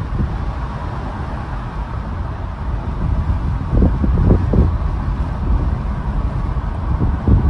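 Steady road and wind noise from a car travelling at highway speed, a low rumble throughout, with a few short low thumps about halfway through and again near the end.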